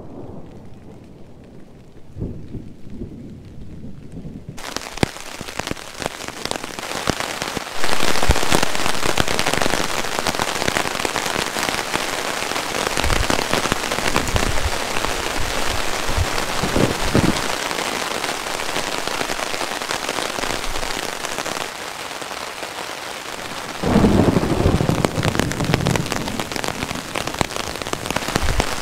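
Thunderstorm: low thunder rumbling at first, then heavy rain hissing down, louder from about eight seconds in, with further rolls of thunder swelling up through it.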